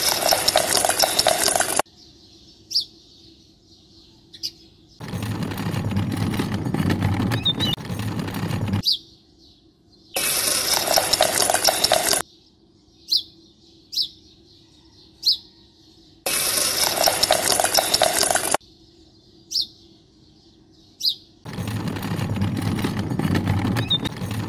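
Small birds chirping in short calls during the quiet gaps, between several loud stretches of rushing noise two to four seconds long.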